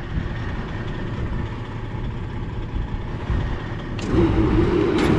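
Steady low rumble. About four seconds in, a switch clicks and the electric motor of a peanut conveyor starts up and runs with a steady hum, followed by a second sharp click about a second later.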